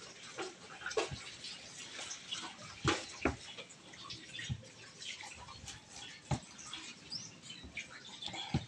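A lemon being rolled and pressed under the palm on a cutting board: irregular soft knocks and rubbing, with a few heavier thumps spread through it.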